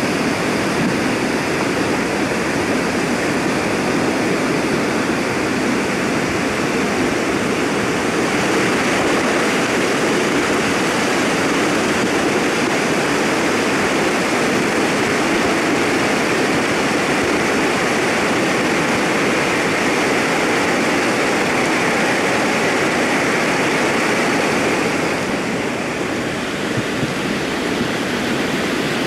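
Steady rushing noise of a mudflow: a torrent of muddy water and stones pouring down the valley. It dips briefly about 25 seconds in, then comes back.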